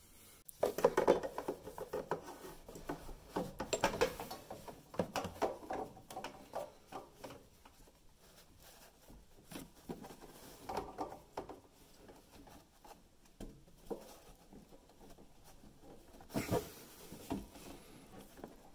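Hands working a half-inch hose onto a mower engine's plastic oil-drain nipple: scattered rubbing, scraping and small clicks in uneven clusters with short pauses.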